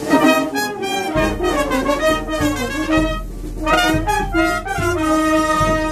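Oaxacan village wind band of trumpets, trombones, sousaphone, saxophones and clarinets playing a tune while walking. The low bass notes come in about a second in.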